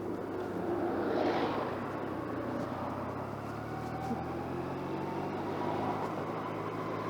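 Motorcycle engine running under way, picked up by a lavalier mic inside the rider's jacket pocket, with road and wind noise. Its pitch slowly rises in the middle as it gathers speed, and a short hiss comes about a second in.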